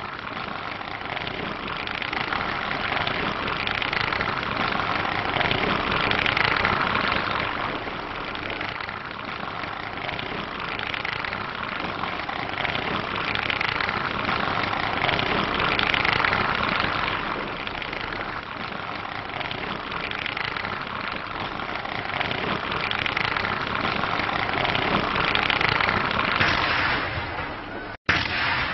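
Dense crackling noise that swells and fades every few seconds, then cuts out sharply near the end.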